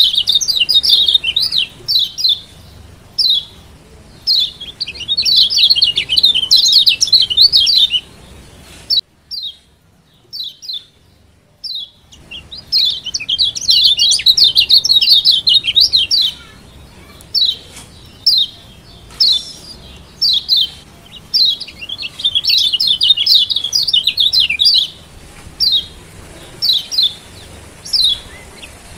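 Lombok yellow white-eye (kecial kuning) giving its 'ciak' call: sharp, high chirps, some single and spaced about a second apart, others packed into fast rattling runs a few seconds long. About a third of the way in the calling drops to a few isolated chirps for a few seconds, then the fast runs resume.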